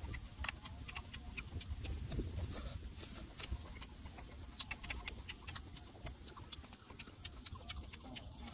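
A man chewing mango and smacking his lips, heard as a quick, irregular string of small mouth clicks.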